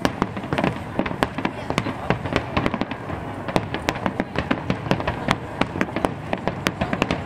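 Aerial fireworks in a rapid barrage: many shells bursting in quick succession, overlapping sharp bangs and crackles, several a second without a pause.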